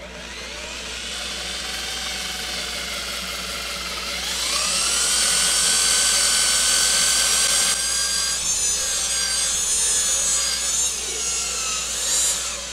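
Angle drill's motor whining as a 2-inch 80-grit sanding disc sands the inside of a wooden canister turning on the lathe. The whine climbs in pitch about four seconds in, holds steady, then wavers and drops near the end.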